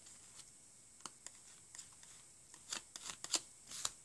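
Nail-stamping tools on a metal stamping plate: faint scraping and light taps as polish is swiped across the plate and the stamper is picked up and pressed. A couple of soft clicks come about a second in, then a quick cluster of short swishes and ticks near the end.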